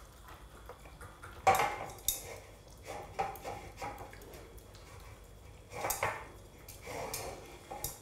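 A raccoon eating porridge from a plastic bowl on a high-chair tray. The bowl clatters and knocks against the tray several times, the loudest knock about a second and a half in.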